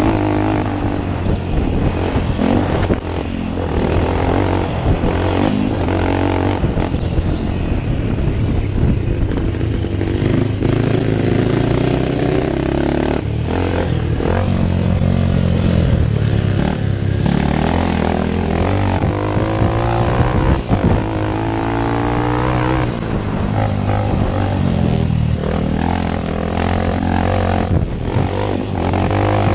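Onboard sound of a scrambles motorcycle at race pace: its engine revs climb and drop over and over as the rider works the throttle round the track.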